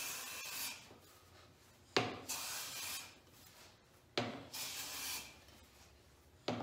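Bench hand plane smoothing a walnut board with the grain. Each pass opens with a sharp knock as the plane bites, then a hissing swish of about a second as the shaving peels off. The passes come about every two seconds: three full strokes, and a fourth begins at the very end.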